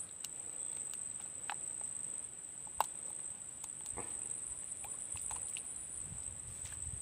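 A steady high-pitched insect drone, like crickets chirring, with scattered small clicks and taps of handling, one sharper click about three seconds in.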